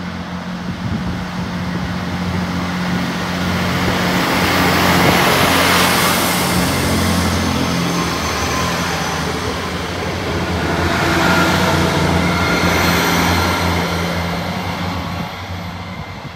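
Diesel train passing through the station: its engines hum steadily under a rushing wheel-and-rail noise that swells about five seconds in and again about twelve seconds in, then fades near the end.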